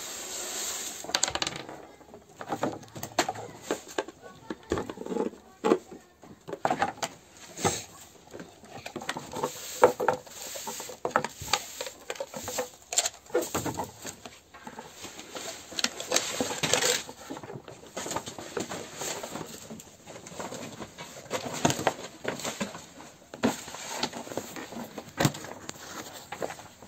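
Cut-off top of a clear plastic bottle handled with gloved hands and pressed onto a round metal tray: irregular crinkles of the plastic, with clicks and taps of plastic against metal.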